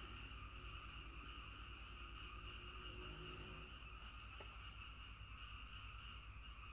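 Faint, steady insect chorus, a constant high drone in several pitches, over a low even hum.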